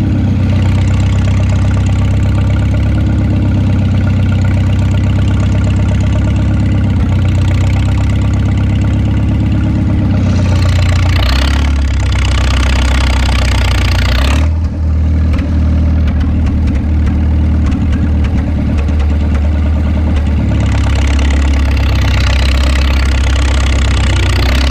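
McCormick-Deering Super M tractor's four-cylinder gasoline engine running steadily at close range. A rushing noise comes in over it about ten seconds in for a few seconds, and again near the end.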